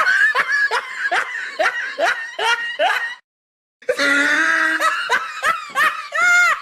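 Loud laughter in rhythmic 'ha' bursts of about three a second, broken off sharply by a half-second silence partway through, then resuming.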